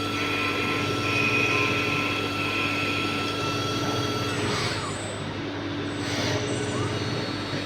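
CNC machine running with a steady mechanical hum made of several steady tones. A high tone stops about four seconds in, and a couple of brief whooshing noises follow.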